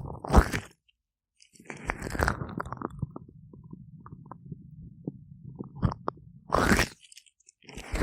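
Gloved hands rubbing and massaging oiled ears right up against the microphone. Close rubbing comes in irregular bursts over a low rumble, with one loud rub about three-quarters of the way through and two brief drops to silence, one about a second in and one near the end.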